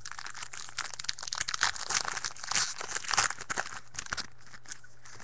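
Plastic-foil wrapper of a baseball trading-card pack being torn open and crumpled, a dense irregular crinkling that stops suddenly about four seconds in.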